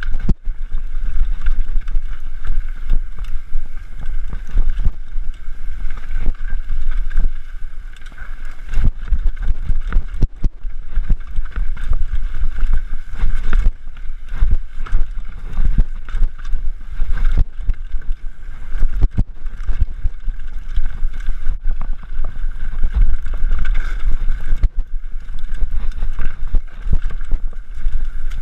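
A mountain bike riding fast over a rough trail, with wind buffeting the microphone in a heavy rumble. Constant rattling and sharp knocks come from the bike as it takes bumps.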